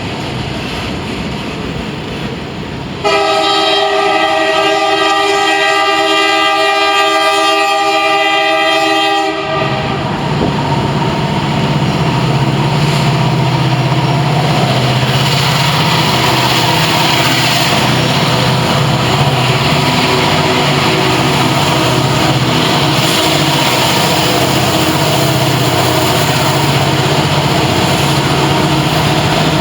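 Freight train rolling by with a rumble. About three seconds in, a diesel locomotive's multi-chime air horn sounds one long blast of about six seconds. After it cuts off, the locomotive's diesel engine drones steadily over the noise of the passing train's wheels.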